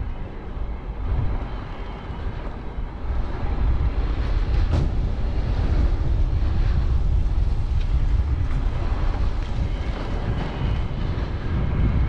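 Wind buffeting the microphone while moving along a brick-paved street: a steady low rumble that grows louder after about three seconds.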